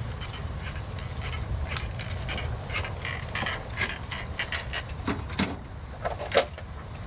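Footsteps crunching on a sandy, leaf-littered path as a person walks in, then a few knocks near the end as gear is put down, over a steady low rumble.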